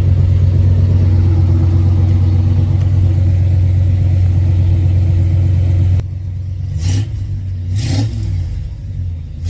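Car engine idling steadily with a strong low hum, then, after an abrupt change about six seconds in, blipped a few times in short throttle revs. It is running with the oil pressure sensor repaired and reading pressure.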